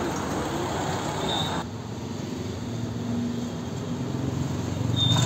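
Outdoor street ambience with road traffic running steadily; about one and a half seconds in it drops abruptly to a quieter, steadier background.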